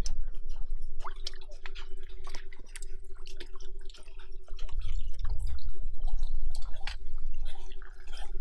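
Muddy water sloshing and dripping as a small bowl scoops it up from a shallow pool, with wet squelching of hands in thick mud, in quick irregular splashes. A faint steady hum runs underneath.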